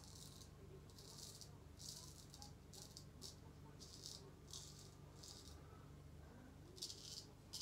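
Faint, crisp scraping of a C.V. Heljestrand straight razor cutting stubble through shaving lather: a series of short strokes about once a second, with a pause near the end. The blade is 'singing', the sign of a sharp edge.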